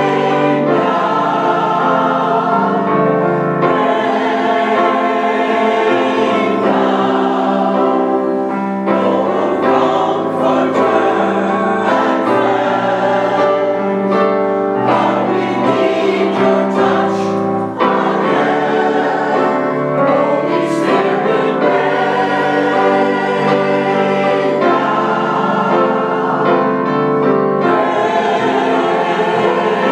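Mixed church choir of men's and women's voices singing in harmony, with long held chords.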